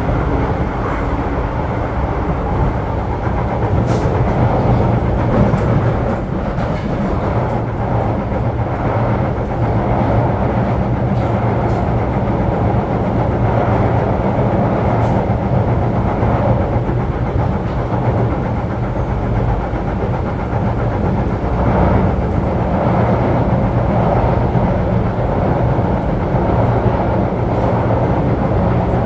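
SMRT C751B metro train running at speed between stations, heard from inside the car: a steady rolling rumble with a low hum and a few faint clicks.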